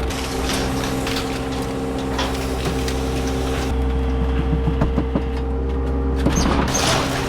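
Skid steer engine running steadily under load, with scattered knocks and scrapes, a busier cluster of them near the end.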